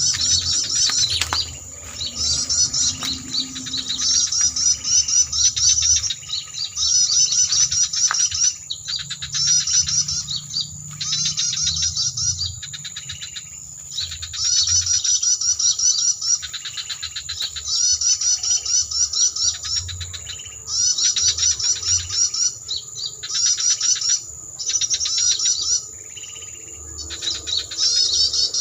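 Homemade bird-lure call played from an MP3 player's speaker: bursts of rapid high chirping, each a second or two long, repeating with short breaks, over a steady high tone.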